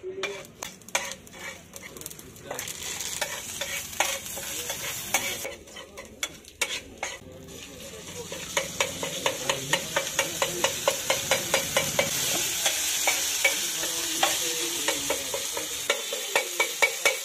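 Metal spatula scraping and tapping on a large flat griddle while chopped greens fry and sizzle on it. The sizzle builds a few seconds in. From about eight seconds on, the spatula strikes the griddle in a steady rhythm of about three taps a second.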